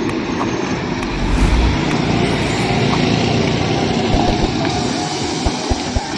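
A heavy tipper truck's diesel engine running as it passes close by, with tyre and road noise. It gets louder about a second in and eases off near the end.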